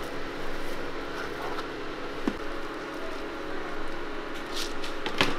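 Steady hum of shop equipment, with a few light clicks and taps near the end as chocolate crumbs are shaken from a plastic squeeze bottle onto a cream-covered waffle.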